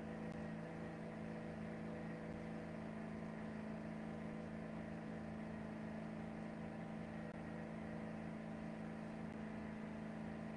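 Steady low hum made of several held tones, with no breaks.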